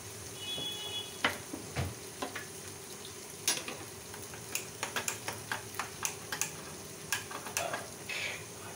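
Soaked rice frying in hot ghee in a nonstick kadhai: a steady sizzle with many irregular sharp crackles and pops, coming more often in the second half, as the wet grains are lightly fried.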